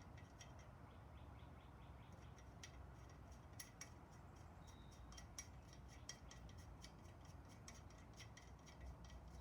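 Faint, irregular light metallic clicks of a bicycle Allen key nut being threaded on by hand and turned, over a low steady hum.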